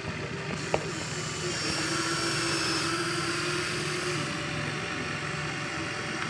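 Remote-control toy excavator's small electric motors running with a steady whine that grows louder and brighter through the middle, with one sharp click under a second in.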